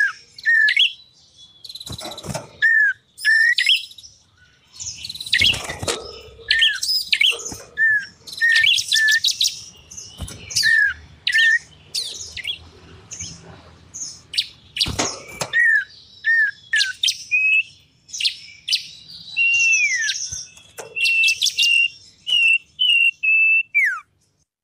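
Small songbirds calling on a bird-lure recording: short high notes that slur downward, repeated many times, mixed with harsh scratchy chatter. It stops suddenly near the end.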